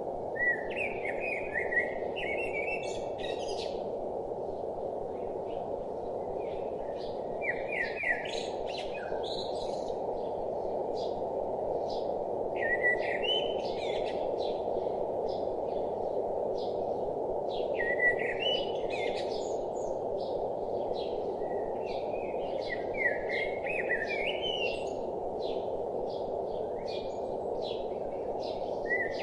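A songbird repeating a short warbling phrase about every five seconds, with scattered short chirps in between, over a steady rush of flowing water.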